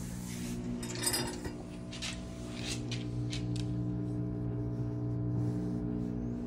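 Pellet stove running in its startup stage, before the room-air blower has come on: a steady motor hum with several pitches. Scattered light clicks and a brief rustle about a second in come from the lit burn pot.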